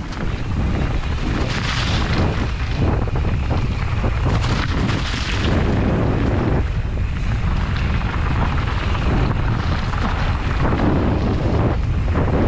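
Loud, steady wind noise buffeting the microphone of a mountain bike rolling down a leaf-covered dirt trail, with frequent short rattles and knocks from the bike going over bumps.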